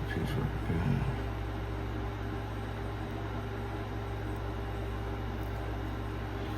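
A steady low hum with a faint steady tone above it, from something running.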